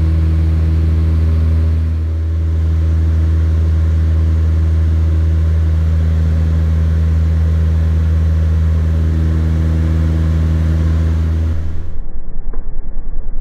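Piston engines and propellers of a twin-engine light aircraft droning steadily in cruise, heard from inside the cabin. About twelve seconds in, the steady drone gives way to a rougher, pulsing rush.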